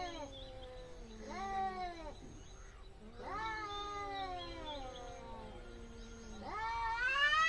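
Two domestic cats caterwauling in an angry standoff: long, drawn-out yowls that rise and fall in pitch, the loudest swelling near the end.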